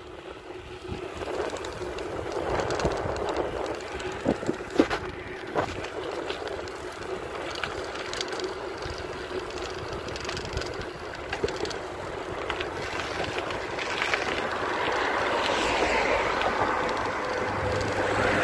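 Riding noise from a moving bicycle: tyre and road rumble with wind on the microphone, and a few sharp rattles and knocks about four to six seconds in. Near the end, the noise of a passing motor vehicle grows louder.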